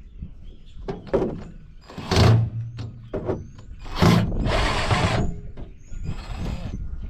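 Knocks and clanks from dismantling a microwave's sheet-metal casing, with a power drill running briefly twice, about 2 s and 4 s in.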